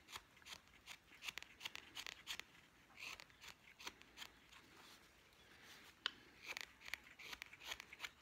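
Carving knife shaving thin curls off a wooden spoon blank: a quick series of faint, crisp slicing strokes, with a lull of a couple of seconds in the middle.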